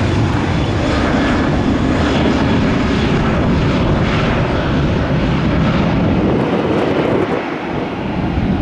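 Southwest Airlines Boeing 737's jet engines running at takeoff power during the takeoff roll: a steady, loud rumble and roar, whose deepest part eases off a little about seven seconds in.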